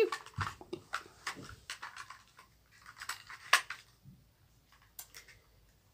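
Light clicks, taps and rustles of a toy gun being handled, most likely reloaded between shots, with the sharpest click about three and a half seconds in.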